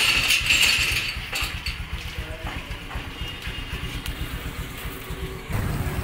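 Honda scooter's small engine running at idle with an uneven low putter, with a burst of rustling in the first second. The low rumble steps up about five and a half seconds in.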